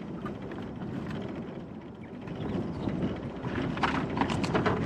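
Wind buffeting the microphone on an open boat, with a quick run of light clicks and rattles from about three and a half seconds in as a crab drop net is handled.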